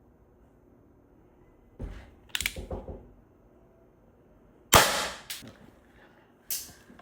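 Air pistol firing one sharp shot about five seconds in. It is preceded by a knock and a quick run of mechanical clicks, and followed by two smaller clicks.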